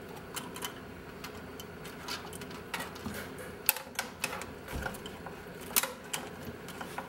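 Irregular light clicks and taps of electrical wires and their crimped terminals rattling against the metal firewall as they are fed through a hole, with two sharper knocks a little past halfway.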